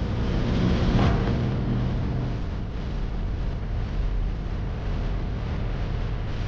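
Dump truck's diesel engine running with a steady low hum that eases after a couple of seconds into a low rumble.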